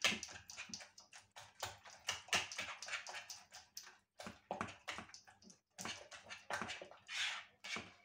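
Wire whisk stirring a wet mix of beaten egg and chopped blood sausage in a plastic bowl: irregular scraping, clicking and squishing strokes, a couple each second.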